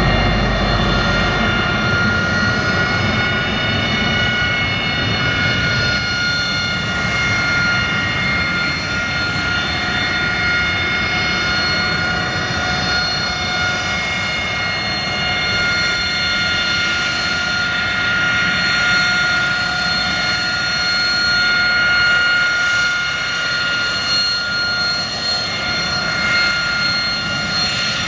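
AV-8B Harrier II's Pegasus turbofan running at taxi idle. It makes a steady high whine of several held tones over a low rumble, and the rumble eases off in the first couple of seconds.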